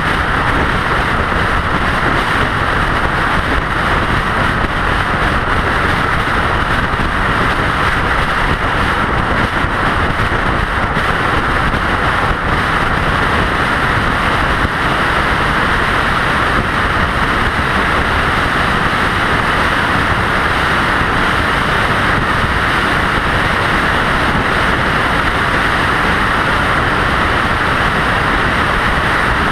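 Steady road noise of a vehicle cruising at highway speed on an interstate: an unchanging rush of tyre and wind noise.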